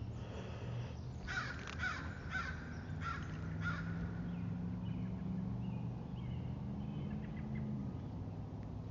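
A bird calling outdoors: a series of about five short, harsh calls in quick succession in the first few seconds, over a steady low hum.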